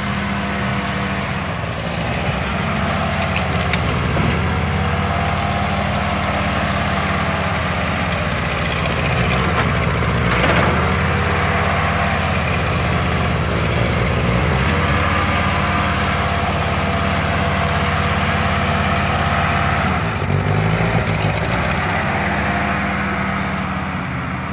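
Small vintage farm tractor engine running as the tractor drives and works its front-end loader, its pitch rising and falling several times with throttle and load. A brief crunch sounds about ten seconds in, as the loader bucket pushes into a pile of debris.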